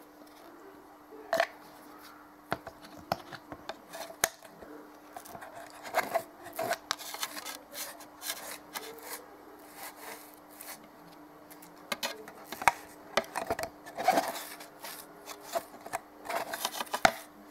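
Sponge dabbing and rubbing acrylic paint onto a thin plastic bottle, making irregular taps and scuffs against the plastic, over a faint steady hum.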